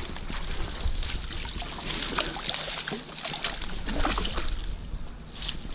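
A landing net being drawn through shallow water and lifted out onto a grassy bank: water sloshing and dripping from the mesh, with rustling of grass and leaves and small knocks.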